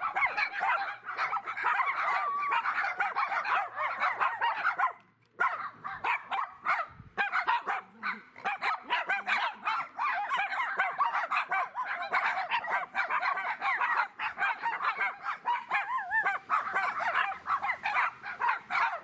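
Several poodles barking and yapping over one another almost without a break, with a short lull about five seconds in.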